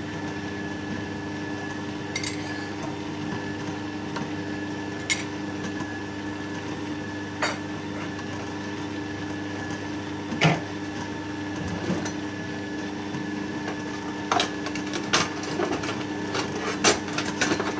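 Electric stand mixer motor running steadily with a constant hum, beating soft margarine, oil and sugar in a stainless steel bowl. There are occasional sharp clicks, several close together near the end.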